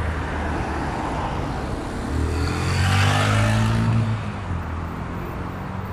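A road vehicle drives past on the street, its engine hum and tyre noise swelling to a peak about three seconds in and then fading, over a steady low traffic drone.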